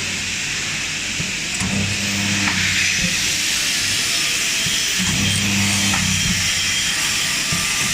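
Wire mesh welding machine running: a low electric buzz comes in about one-second bursts, twice, as welds are made, over a steady hiss with faint clicks from the mechanism.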